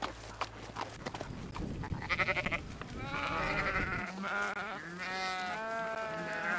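A flock of sheep bleating, with several wavering bleats overlapping from about two seconds in. A few light clicks come first.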